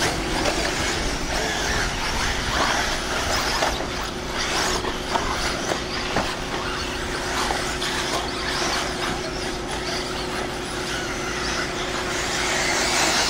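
Several eighth-scale electric off-road RC buggies racing on a dirt track, their brushless motors whining up and down in pitch as they speed up and slow down over a rushing noise of tyres, with scattered clicks. A steady low hum runs underneath.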